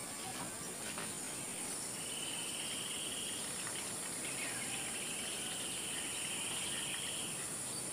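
Insects chirring: a steady high-pitched trill, with a lower trill that comes and goes in stretches of a second or more.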